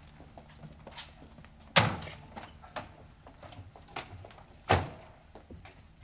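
Two door slams about three seconds apart, the first a car door shutting, with lighter knocks in between.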